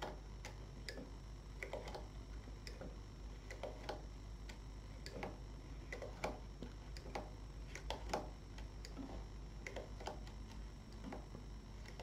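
Faint, irregular clicks of knitting-machine needles being moved one by one by hand along a single-bed needle bed, roughly one or two clicks a second, while the long-stitch row is being set up.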